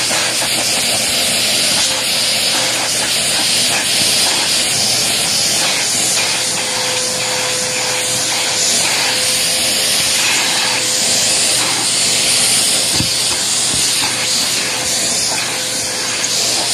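Handheld vacuum cleaner running steadily, a loud hissing rush of air with a faint steady motor whine under it, as its nozzle is drawn over a cat's fur to pull out fleas.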